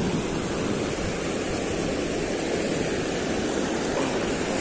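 Water rushing steadily over a concrete river weir and churning into white water below it, an even rushing noise with a low rumble underneath.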